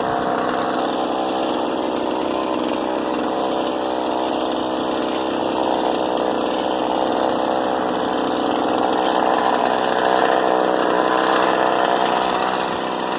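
Pull-start gasoline chainsaw engine running steadily, getting a little louder around ten seconds in.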